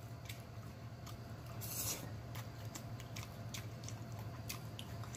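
Close-up eating sounds: a man chewing a mouthful of food, with scattered faint wet clicks and smacks and a short hiss about two seconds in, over a steady low hum.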